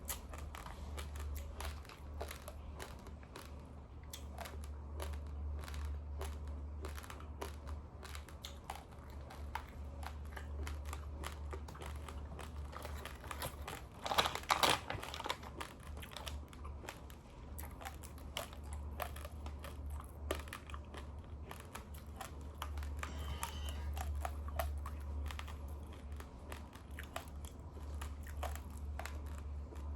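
Raw, uncooked long-grain rice being crunched and chewed, a steady run of small dry cracks, with a louder burst about halfway through.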